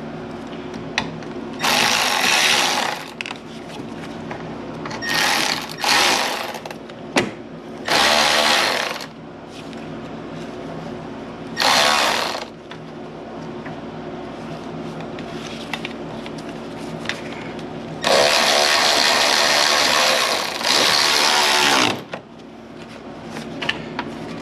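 Power tool run in about seven short bursts of a second or two each, the longest near the end, over a steady low hum.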